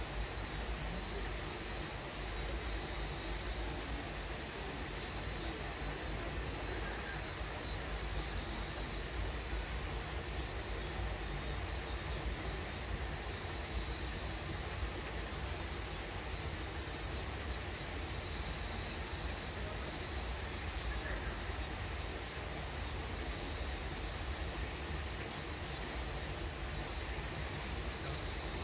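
Outdoor ambience carried by a steady insect chorus, a high-pitched pulsing that repeats without pause, over a low background rumble.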